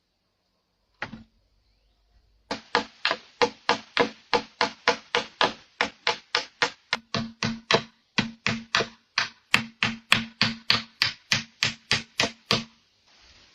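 A hammer striking wood in a fast, steady rhythm, about four blows a second, after a single knock just before.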